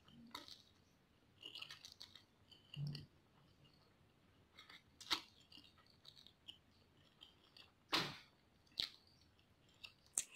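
A person eating instant noodles close to the microphone: slurping noodles in and chewing, with scattered short wet mouth sounds. The loudest slurps come about five and eight seconds in.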